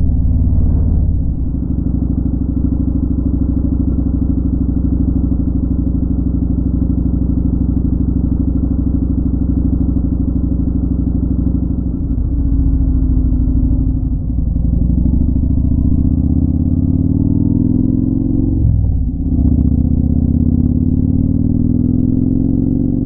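Motorcycle engine heard from the rider's seat while riding the highway: a steady note at cruising speed, which eases off about halfway, then rises in pitch, breaks briefly near the end and rises again.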